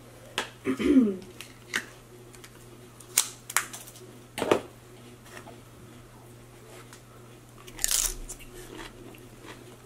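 Close-miked eating sounds: scattered sharp clicks and lip smacks while a small plastic cup of green salsa is handled and emptied, a brief 'mm' about a second in, and a short slurp near the end.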